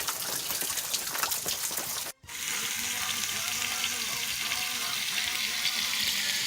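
Rain pattering steadily, with many small drop ticks, for about two seconds. It then cuts off abruptly and is followed by a steady, even hiss.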